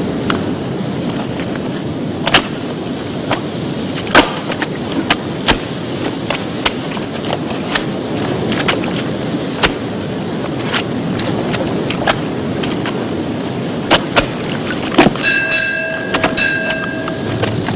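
Steady rushing noise, crackly and scratchy with irregular sharp pops, typical of an old film soundtrack. Near the end comes a held, whistle-like pitched tone of about two seconds.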